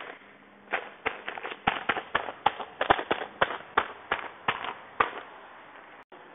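Sealed clear plastic bags of granules crinkling as they are handled and laid out by hand: a quick run of sharp crackles, several a second, that stops about five seconds in.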